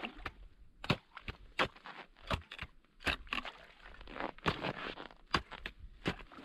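Two steel-tipped ice chisels (ice spuds) chopping into river ice: irregular sharp strikes, a few a second from the two men, with crunching and scraping of broken ice between blows.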